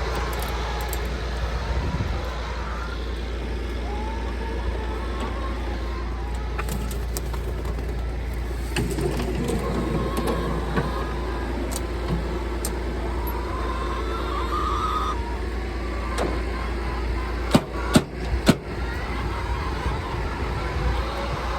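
Tractor running a feed grinder, a steady low machine drone, with three sharp knocks in quick succession near the end.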